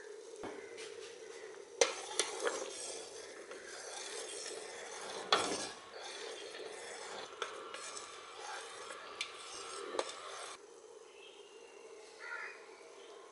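A spoon stirs thick simmering orange marmalade in a stainless steel pot, scraping and clinking against the pot's sides and bottom, with sharp knocks about two seconds in and again near five and ten seconds. The stirring stops about ten and a half seconds in.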